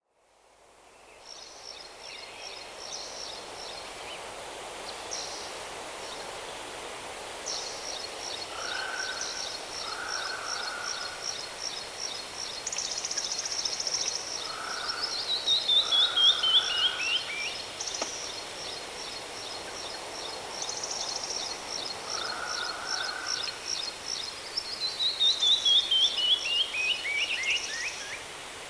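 Several birds singing over a steady background hiss. A high, rapid trill repeats on and off, and twice a cascade of clear notes falls in pitch and speeds up as it drops; these cascades are the loudest part.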